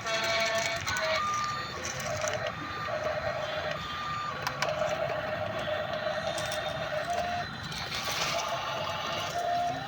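Small electric gear motors of a toy remote-control excavator whining in short runs, starting and stopping at a few slightly different pitches over a gritty gear rattle.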